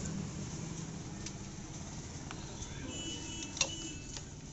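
Motorcycle front disc-brake caliper with new pads being handled and fitted over the brake disc by hand: a few light metallic clicks, with one sharp click a little past halfway. A steady background of vehicle noise runs underneath.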